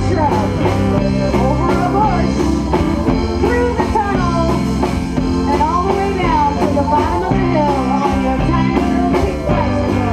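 Live band playing: electric guitar, electric bass, drum kit and keyboard, with a woman singing the melody over them.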